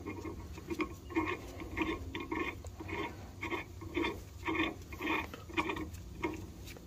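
Steel guide-pin bolt being hand-threaded into a brake caliper bracket: metal threads scraping in short strokes, about two a second. The turning is stiff, which the mechanic puts down to small bumps on the bolt threads.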